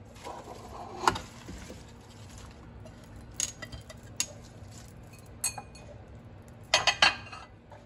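A bowl clinking and knocking against a stainless steel stockpot as chopped cabbage is tipped into it and pushed down. There is one loud clink about a second in, a few lighter knocks after it, and a quick run of clinks near the end.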